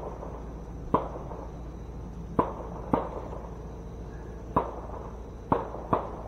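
Gunfire: about seven sharp shots at irregular intervals, some in quick pairs, each trailing off in a short echo.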